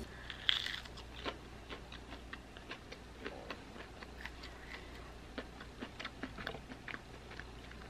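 Crunchy chewing of a breaded vegan chicken nugget (a MorningStar Farms buffalo wing) fresh from the oven: a bite about half a second in, then a run of small, irregular crisp crackles as it is chewed.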